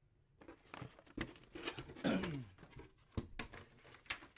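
Cardboard box lid being slid off and a kraft paper envelope being handled: scraping and rustling with a series of sharp taps and clicks. About two seconds in there is a short, low vocal sound that falls in pitch.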